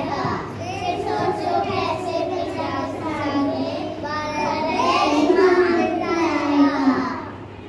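Young children singing a song together; the singing stops shortly before the end.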